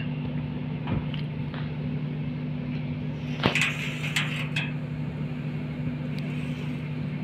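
Steady low machine hum in the background, with a few sharp clicks and light scraping of a steel square against a steel plate as a line is marked along it; the loudest knock comes about three and a half seconds in, followed by a short run of clicks.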